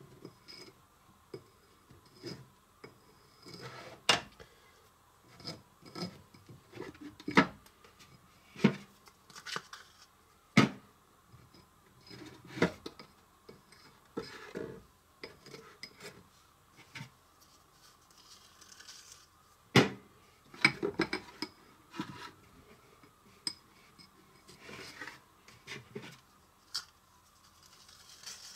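Small metal spreader knife clinking and scraping against a ceramic plate while spreading frosting around a cake's edge: irregular light taps and scrapes, with a few sharper clinks several seconds apart.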